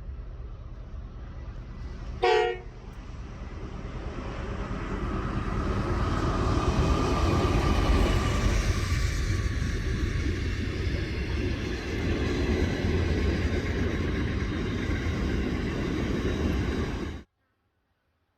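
A train sounds one short horn blast about two seconds in. Its engine and wheel noise then grows louder as it approaches and stays loud as it runs past, before cutting off suddenly near the end.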